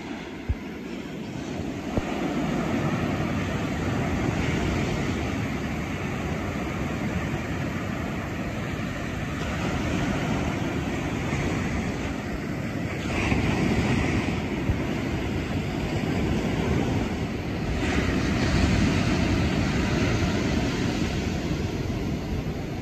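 Ocean surf breaking and washing up the shore, a steady rumble that swells louder twice, about thirteen and eighteen seconds in.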